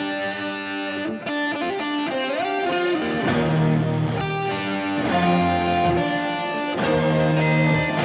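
Instrumental background music led by an electric guitar played through effects.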